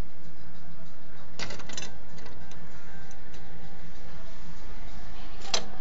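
Handling noise from a phone being moved while filming: a short burst of rustling clicks about a second and a half in and a single sharp click near the end, over a steady low hum.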